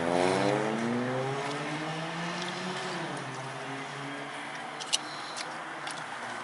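Motor vehicle engine accelerating, its note rising for about two seconds, then dropping and fading away, heard from inside a car. A single sharp click about five seconds in.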